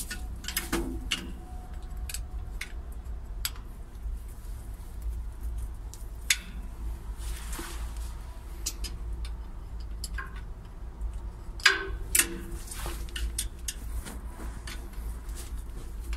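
Scattered small clicks, taps and knocks of hands and a hex key working on the metal bracket and cable of a crane boom's inductive sensor, with a couple of sharper knocks about twelve seconds in. A steady low rumble runs underneath.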